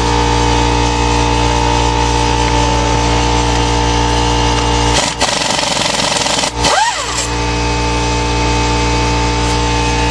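A motor running steadily with an even hum. About five seconds in it drops out briefly with a couple of knocks, then a short rising-and-falling whine, and it carries on.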